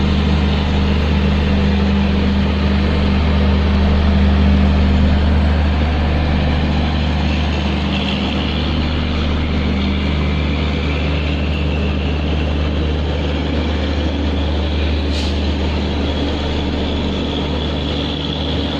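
WAG-5 electric locomotive hauling the train under power: a steady deep hum over the even noise of the running train. There is one brief sharp click about fifteen seconds in.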